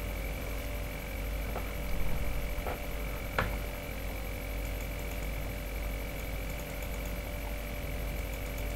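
Steady electrical mains hum with background noise, broken by three faint clicks in the first few seconds.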